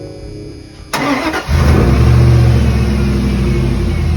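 Guitar music plays quietly at first. About a second in, the starter briefly cranks the 2002 Dodge Dakota's 4.7-litre V8, which fires within half a second and runs loud and steady. This is the first start on new spark plugs and ignition coils.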